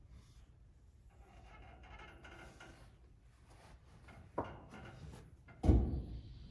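Mostly quiet, with faint distant voices, broken by a short knock about four seconds in and a heavier thump, the loudest sound, about a second later.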